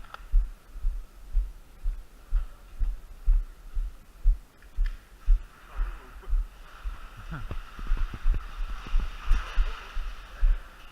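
Dull low thumps in an even rhythm of about two a second, with faint distant voices in the second half.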